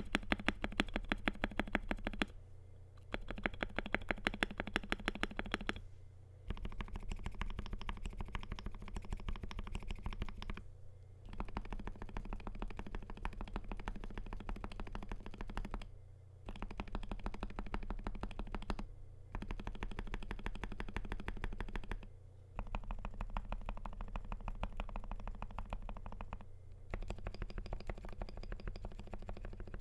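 Fast typing on a Wooting 60HE keyboard with Wooting Lekker L60 magnetic switches, a stainless steel plate and OEM PBT doubleshot keycaps: dense runs of keystroke clacks broken by short pauses every few seconds. The strokes in the first few seconds are sharper and more separate.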